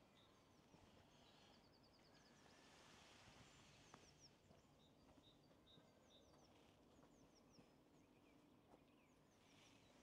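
Faint birdsong from small birds: short, high chirping notes repeated throughout, with a quick trill about a second and a half in, over a near-silent background hiss.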